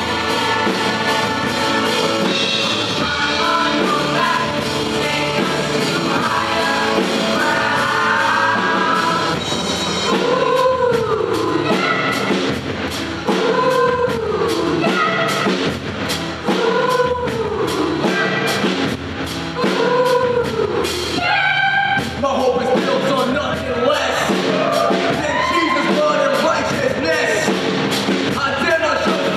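Youth choir singing with instrumental accompaniment: held chords at first, then from about ten seconds in, rising-and-falling sung phrases over a steady drum beat.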